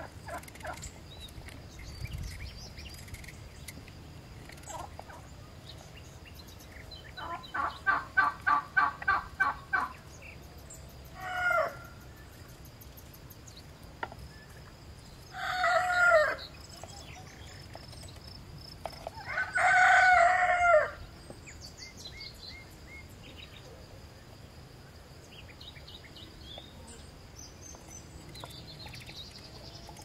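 Farmyard poultry calling: a quick run of about ten calls about eight seconds in, then a short call and two long crows from a rooster.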